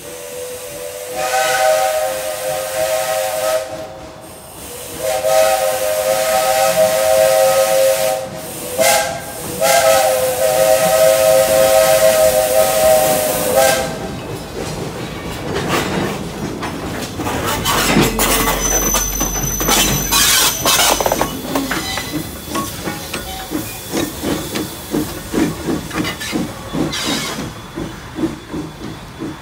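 Steam locomotive's whistle sounding the grade-crossing signal, long, long, short, long, several notes sounding together. The locomotive then passes with exhaust beats and a hiss of steam, followed by steady clicking of wheels over the rail joints as the cars roll by.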